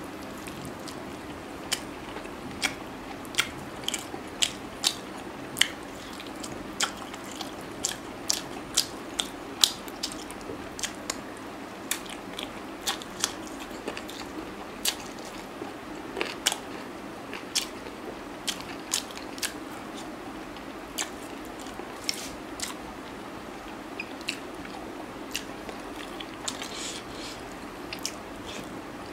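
Close-up eating sounds of chicken on the bone eaten by hand: biting, chewing and wet mouth smacks, heard as sharp, irregular clicks several times a second.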